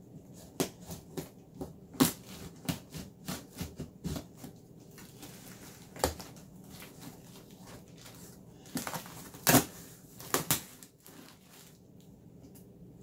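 Utility knife cutting open a taped cardboard shipping box: an irregular run of sharp scrapes, clicks and cardboard crunching. The loudest bursts come about two, six and nine and a half seconds in.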